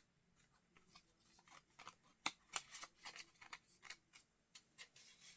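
Faint rustling and clicking of card and paper being handled from a boxed collector's set, a scatter of short crisp sounds that get busier partway through, with one sharper click a little over two seconds in.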